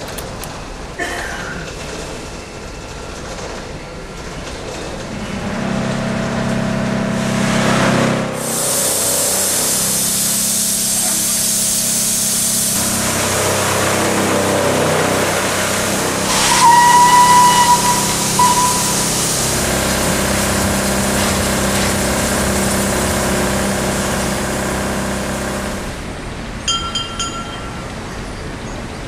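Small steam locomotive of a sugar-cane field railway standing in steam with a steady hiss and low hum. A loud rush of escaping steam lasts about four seconds, a third of the way in, and a short steady whistle blast comes a little past halfway.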